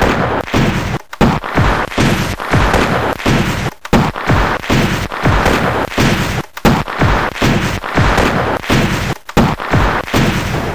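Rifle gunfire, shot after shot at about two to three a second, each with a booming, echoing tail; it cuts in abruptly out of silence.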